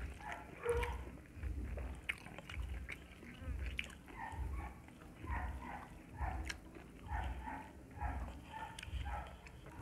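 Close-up chewing of pork and rice, in a steady rhythm of about three chews every two seconds.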